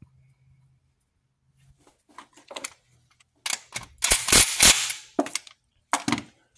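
Cordless impact wrench driving the crankshaft bolt in, a burst of rapid hammering lasting about a second and a half past the middle. Lighter metallic clicks of parts and tools being handled come before and after it.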